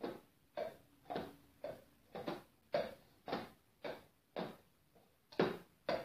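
Two funnels, one metal and one plastic, knocked mouth-down on a wooden table as foley for a horse's hooves: evenly spaced clops about twice a second, with one short pause near the end.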